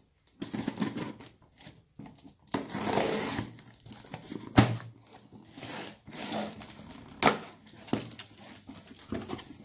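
Packing tape on a cardboard box being slit with a small knife, then the cardboard flaps pulled open: scraping and rustling, with a few sharp knocks, the loudest about halfway through.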